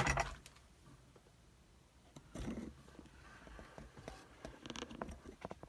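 Metal clicks and knocks as a vise is opened and a picked padlock is handled: a sharp click at the start, a knock about two and a half seconds in, then several small clicks near the end.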